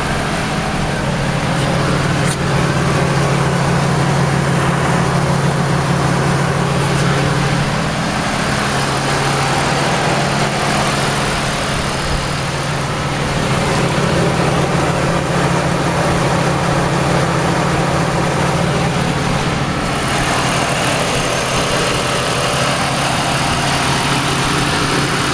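Car engine idling steadily with the air conditioning running, with no knock in it: the engine knock has been cured.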